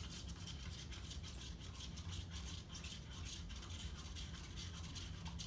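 Paint thinned with water being stirred briskly in a paper cup, the utensil scraping rapidly around the inside of the cup to work out the clumps, over a steady low hum.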